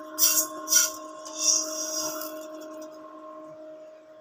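Dry-roasted mung dal scraped and poured from a pan into an aluminium pot of rice, making three rasping, rattling sweeps of grain in the first couple of seconds. Under it a steady electric hum from the induction cooktop.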